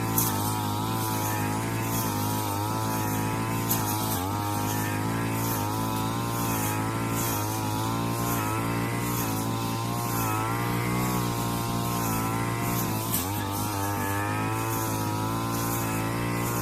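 Small two-stroke brush cutter fitted with a circular blade running steadily while cutting grass, its engine speed wavering slightly up and down and dipping briefly once near the end.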